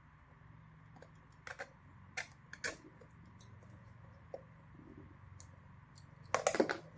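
Small metal parts clicking and tapping as they are worked by hand: a few sharp clicks in the first three seconds, then a quick cluster of louder clicks near the end, over a faint steady hum.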